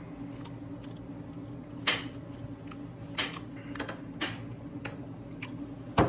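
Tabletop eating sounds: a few scattered clicks and rustles from chopsticks, dishes and seaweed-wrapped food, with soju poured from a bottle into a shot glass partway through, over a low steady hum. The sharpest click comes near the end.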